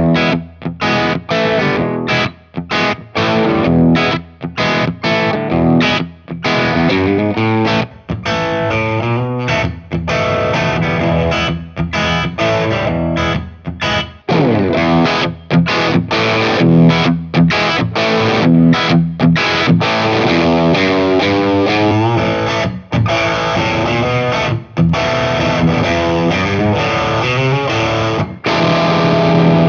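Electric guitar played through a Boss BD-2 Blues Driver overdrive pedal into an Amonito tube amp, giving an overdriven tone. The playing starts with short, chopped chords and phrases, then moves to longer ringing chords from about two-thirds of the way in.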